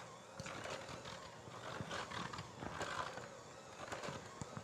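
Stiff cookie dough being mixed in a bowl: irregular scraping with uneven knocks of the utensil against the bowl.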